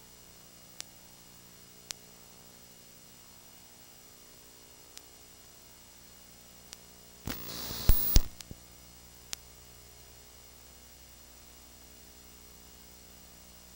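Faint steady electrical hum and hiss, with a few single sharp clicks and a loud crackling burst of static about seven to eight seconds in.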